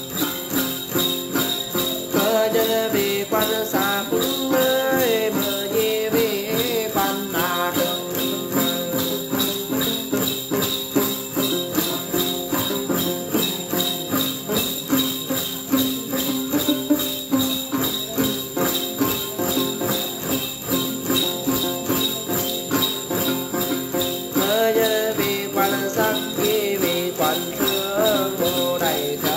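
A cluster of small jingle bells (the chùm xóc nhạc of Then ritual music) shaken in a steady, even rhythm. A voice sings over it in two stretches, near the start and near the end.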